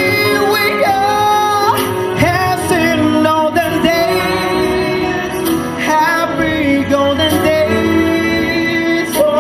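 A man singing into a handheld microphone over musical accompaniment, part of a male–female pop duet.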